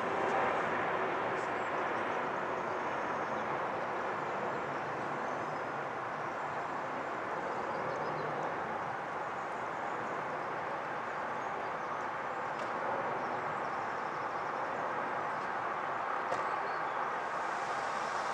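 Jet engine noise from a Boeing 777-300ER's twin GE90 turbofans as the airliner passes overhead on approach to land with its gear down: a steady, even rushing rumble.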